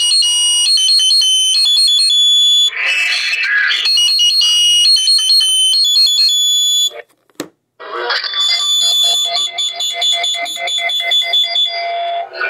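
Olympus Note Corder DP-201 voice recorder playing back a recording through its small built-in speaker: thin, high-pitched, beeping electronic tones with no bass. The playback cuts out for under a second about seven seconds in, then starts again.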